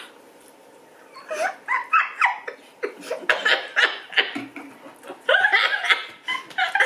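Several young women laughing together: quiet for the first second or so, then giggling that builds into louder laughter toward the end.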